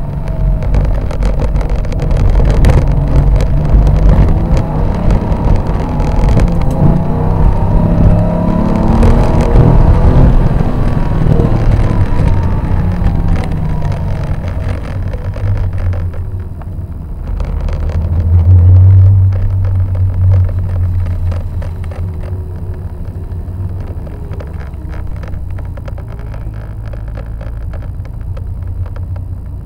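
Porsche 911 SC's air-cooled flat-six heard from inside the cabin, revving up and down through the gears with its pitch rising and falling. About halfway through it drops to a lower, steadier running sound, swells briefly once a few seconds later, then settles to a low, steady rumble.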